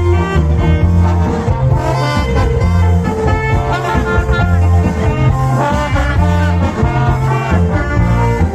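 Loud cha-cha dance music blasting from a mobile sound system, with a heavy pulsing bass under a horn-like melody.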